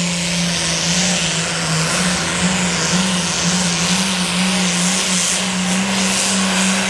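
Super farm pulling tractor's diesel engine held at high, steady revs with a slight waver in pitch, as it is brought up to the line before being released down the track.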